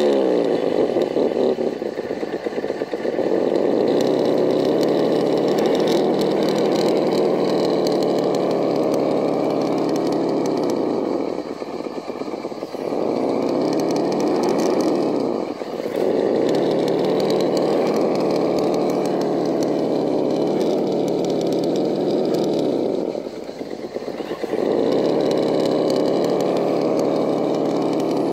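Electric motor and geared drivetrain of a Vaterra Ascender RC rock crawler whining steadily as it crawls over rock, easing off briefly three times.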